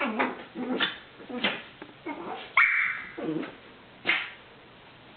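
A chiweenie (Chihuahua–dachshund mix) making play noises: a run of short grumbling barks and yips, with one higher whine about two and a half seconds in. The noises stop about four seconds in.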